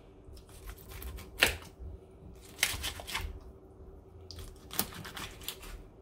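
Kitchen knife cutting through a parrotfish's hard, scaly skin and bone on a plastic cutting board. It gives sharp cracks and crunches in three short bursts, about a second and a half in, around three seconds in, and near the end.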